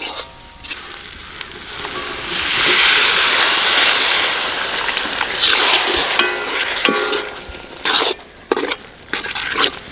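Water poured into a hot iron kadai of oil-fried onion and spice masala, setting off a sizzle and hiss of steam that swells about two seconds in and then dies down. After that, a steel ladle scrapes and knocks against the pan a few times as the masala is stirred.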